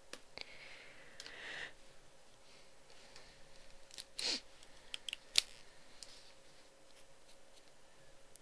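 Quiet close-up handling sounds: a soft rustle near the start, a brief swish about four seconds in, and a few sharp clicks soon after.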